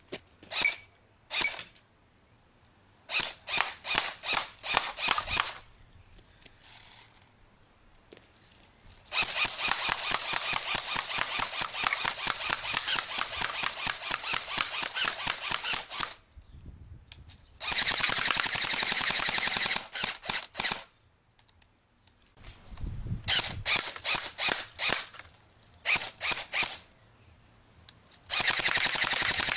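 JLS FN SCAR L electric airsoft rifle firing, its gearbox cycling in rapid clicking strings: a few short bursts, then a long full-auto string about nine seconds in lasting some seven seconds, more short bursts, and another long burst near the end.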